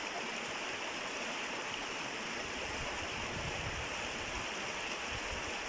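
Shallow, rocky river rushing steadily over boulders and stones: a constant, even wash of running water.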